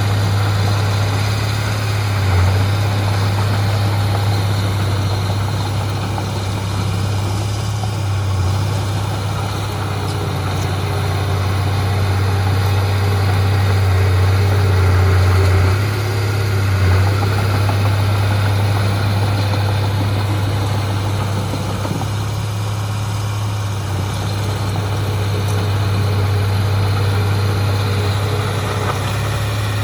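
Heavy diesel engine of earthmoving machinery running steadily with a constant low hum, rising and easing slightly a few times.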